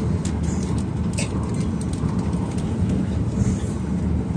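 Running noise inside the cabin of an E6-series Akita Shinkansen Komachi train: a steady low rumble, with a few light clicks in the first second or so.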